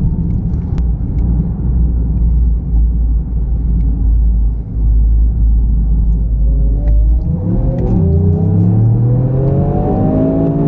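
Toyota GR Yaris's turbocharged 1.6-litre three-cylinder engine with road noise: a steady low rumble at first, then about seven seconds in the engine note climbs under acceleration, drops at a gear change and climbs again.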